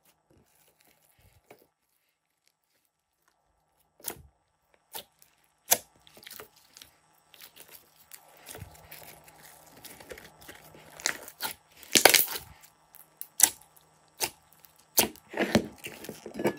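Glossy slime being pressed, stretched and peeled off a glass dish by hand, giving sharp sticky pops and crackles. The pops start after about four seconds of near silence and grow denser and louder in the second half.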